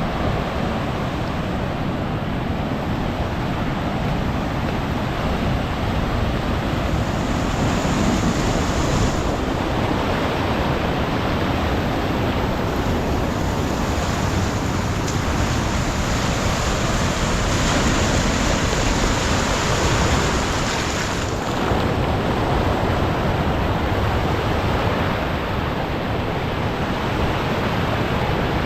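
Ocean surf washing over a coastal rock shelf, a continuous rush of seawater with wind buffeting the microphone. The rush swells from about a quarter of the way in and eases off again past two-thirds.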